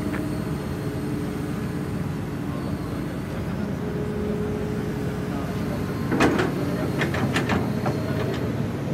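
Diesel engine of heavy construction machinery running steadily, with a quick series of sharp metallic clanks about six seconds in.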